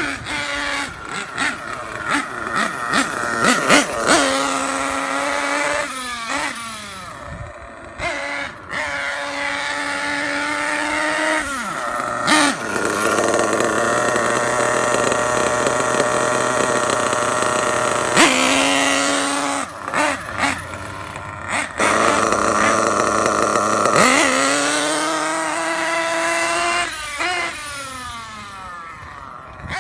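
Dynamite .28 nitro engine of an RC truggy revving up and down as the truck is driven, dropping back to a steady idle between bursts, with two long stretches held at high revs in the middle. It is running rich on the high-speed needle while being leaned out.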